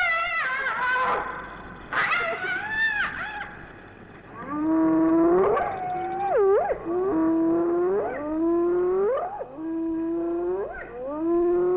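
Spotted hyenas and jackals calling at night around a lion kill: two long wavering wails in the first few seconds, then a run of repeated calls, about one a second, each starting low and rising sharply in pitch.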